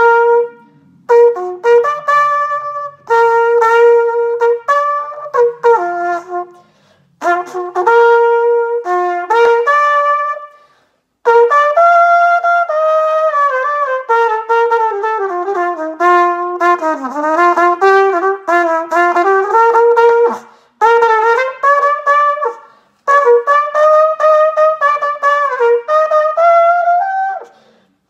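Solo trumpet playing a slow melody in phrases of held notes, with short breath pauses between them. A long middle phrase winds down in pitch and back up again.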